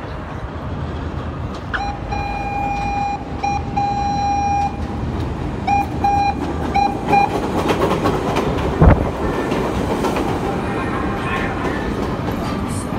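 CTA Holiday Train, an 'L' rapid-transit train, sounding its horn as it approaches: one long blast followed by a string of short toots. Then the train rolls into the station, wheels rumbling and rattling on the rails, with a single sharp thump about nine seconds in.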